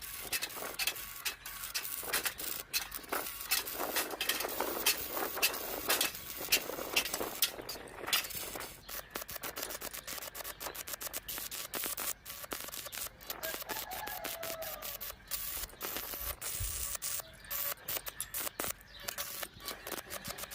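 Electric arc welding on steel: a continuous crackle of rapid, irregular clicks, growing denser about halfway through.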